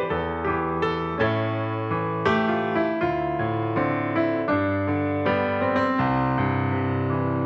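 Background piano music, gentle notes and chords struck about twice a second and left to ring.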